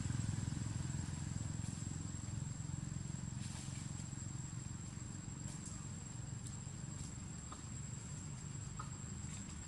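Low rumble of a motor vehicle, most likely a motorbike, slowly fading as it moves off. A steady high insect trill runs throughout.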